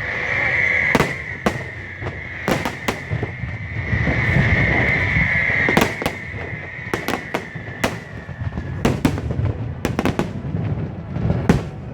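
Aerial fireworks bursting overhead: repeated sharp bangs at irregular intervals, coming thick and fast near the end, over a continuous high hiss.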